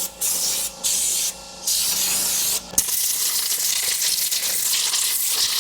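Compressed-air spray hissing in three short bursts, then continuously from about three seconds in. A low steady hum underneath stops with a click at that point.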